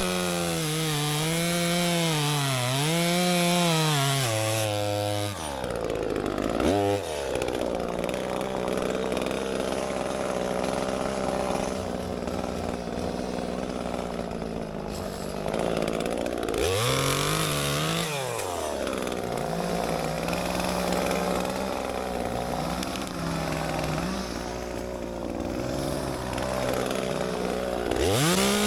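Two-stroke chainsaw running and cutting through logs to buck the felled tree into pieces. The engine revs up and down for the first few seconds, then its pitch sags and holds low while the chain is in the wood, with a brief rise and fall again partway through.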